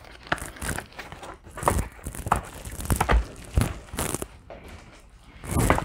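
Diamond painting kit boxes and their packaging being handled: irregular crinkling rustles and clicks, with a few soft knocks.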